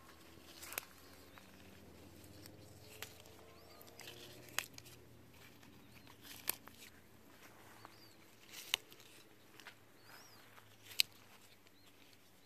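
Leaves rustling and about half a dozen sharp clicks and snaps as hands work among a tree's leafy branches and shoots. Faint bird chirps sound in the background.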